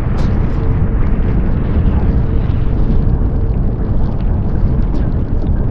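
Heavy wind buffeting the microphone and water rushing past as a catamaran sails fast in high wind, a loud steady rumble with a faint steady hum through most of it.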